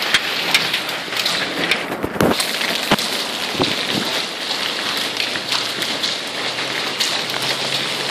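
Large hailstones falling heavily: a steady hiss of stones striking the ground, broken by frequent sharp knocks from individual stones.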